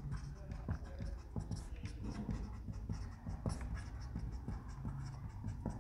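Marker pen writing on a whiteboard: a run of short, irregular scratchy strokes as words are written out.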